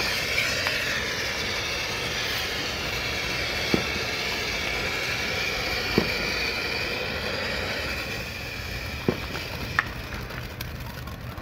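Ground fountain firework spraying sparks with a steady hiss. Four sharp pops come through it, and the hiss eases a little near the end as crackling sets in.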